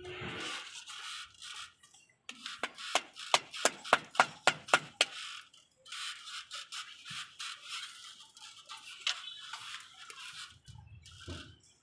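A quick run of about a dozen sharp taps, roughly four a second, on a cement-skinned foam precast moulding being set into adhesive mortar around a window frame. Scraping and small clicks follow as the piece is pressed and worked into place.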